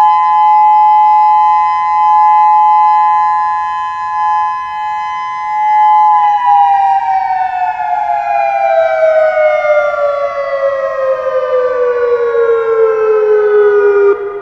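Federal Signal Modulator 6032 electronic outdoor warning siren sounding its steady Alert tone, two close pitches together, then winding down about six seconds in as the Alert is deactivated. The pitch falls slowly for about eight seconds and stops just before the end.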